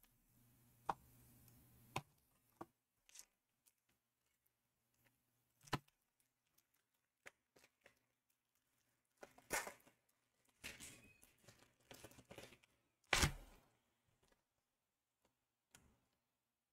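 Faint handling of trading cards and their packaging: scattered light clicks and taps, then a few short rustles, the loudest about 13 seconds in.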